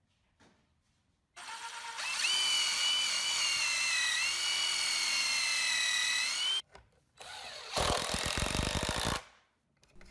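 Cordless impact driver driving screws through the sled's plywood fence into a glued-on block. It runs with a steady whine for about five seconds, dipping slightly in pitch midway, then stops abruptly. After a short pause a second run breaks into rapid hammering, the impact mechanism working against the screw's resistance.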